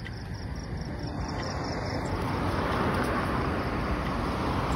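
Road traffic noise: a rushing hiss of a vehicle on the road that swells about two seconds in and stays loud, as of a car passing close. Faint rapid chirping of insects is heard in the first couple of seconds.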